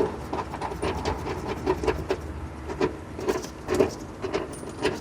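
Small metal parts clicking and clinking at an irregular pace as a bolt, washer and sleeve are handled and fitted at a seat belt anchor point.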